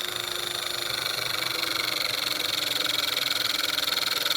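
Powered 12-ton hydraulic crimping tool running steadily while it presses a crimp connector onto heavy cable. Its motor note drops slightly and gets a little louder as the pressure builds.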